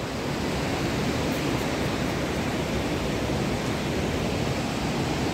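Fast mountain stream rushing over rocks: a steady, even hiss of white water.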